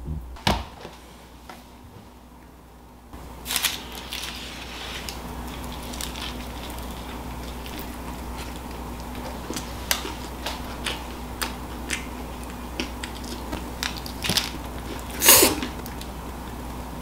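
Close-up eating sounds: bites into and chewing of crusty homemade pizza, with small crackles and mouth noises over a steady low hum. A louder crunchy bite comes near the end.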